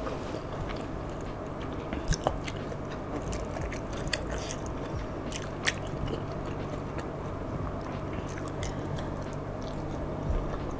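Close-miked chewing and mouth sounds of someone eating rice and curry by hand: soft wet smacks and scattered clicks over a steady low hum.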